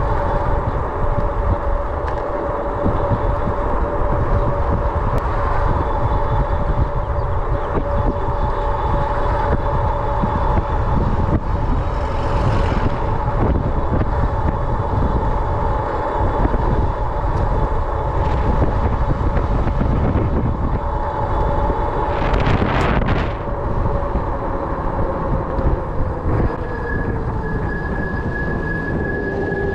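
Heavy wind rush and tyre rumble from a Himiway Zebra fat-tyre electric bike ridden at speed, with a steady whine from the bike that drops in pitch near the end as it slows. There are two brief louder rushes, one a little before the middle and one about three-quarters of the way through.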